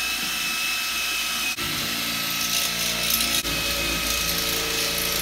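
Power drill with a step bit cutting through a caster's mounting plate to enlarge its bolt holes. It runs steadily, with two brief let-offs, and stops near the end.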